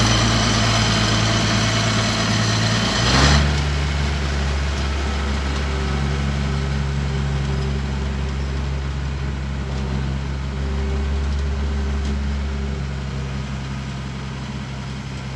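Zmaj 142 combine harvester's diesel engine idling as it warms up after a cold start. About three seconds in there is a brief louder burst, then it settles into a steadier, smoother idle.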